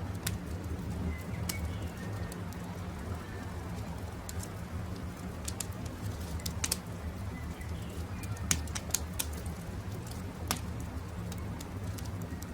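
Wood campfire crackling with a steady low rumble and scattered sharp pops, several of them loud. Faint bird calls sound in the first few seconds.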